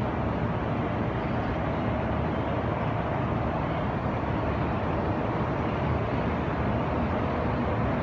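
Steady distant city traffic noise: an even, unbroken hum and hiss with no distinct events.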